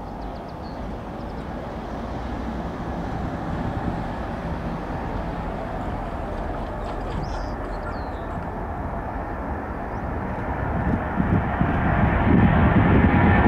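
Boeing 777-200's jet engines at takeoff thrust: a steady rumble that grows louder as the airliner rolls down the runway and lifts off, loudest near the end.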